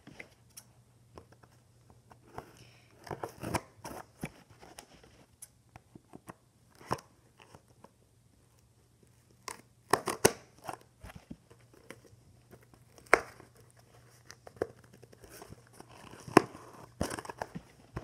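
A parcel's packaging being opened by hand: scattered tearing, crinkling and rustling in short bursts with light clicks, separated by quiet gaps.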